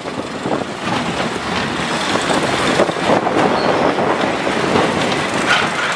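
Ride-on sound of a portable fairground roller coaster: the car's wheels rumble and rattle continuously along the steel track.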